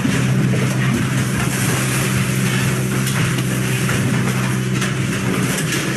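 Excavator's diesel engine running steadily, a constant low hum with a broad hiss over it.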